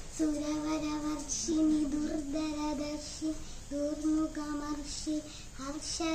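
A young girl singing a song solo, holding each sung phrase at a steady pitch with short breaks for breath between lines.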